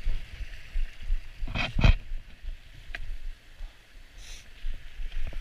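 Hiker's footsteps on snowy ground beside a flowing creek: two heavy steps about one and a half seconds in and a lighter one at three seconds, over the steady rush of the creek's water.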